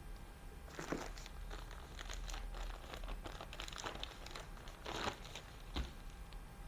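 Packaging crinkling and rustling in bursts as an accessory is unwrapped by hand, with two louder crackles about a second in and near five seconds.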